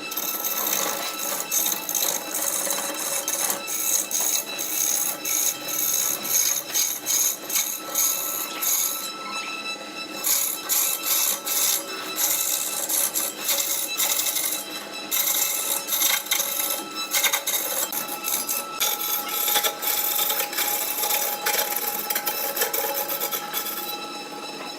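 Wood lathe spinning a workpiece while a turning tool cuts into it: a steady high motor whine under a rough scraping hiss of many short strokes, which lets up briefly a few times.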